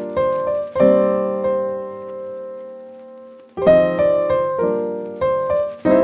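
Piano music: chords struck and left to ring, with a long fading chord in the middle and a run of new chords in the second half.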